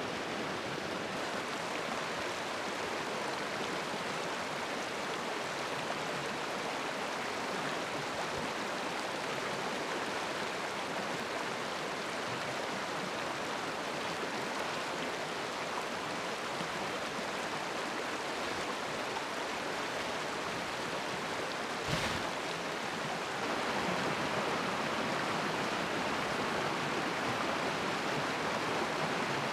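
Steady rushing of a flowing stream, with a single sharp knock about three-quarters of the way through.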